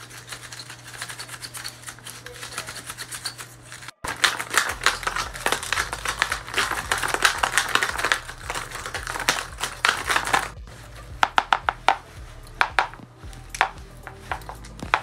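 Folded paper dragon puppet jaws snapping open and shut over and over, making fast runs of dry paper clicks with rustling. The clicking breaks off briefly about four seconds in. Near the end it comes as quicker, separate snaps.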